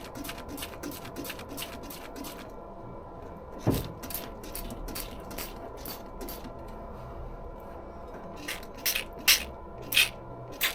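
A run of sharp clicks and light knocks, with one heavier thump about four seconds in and the clicks coming thicker near the end, over a faint steady tone.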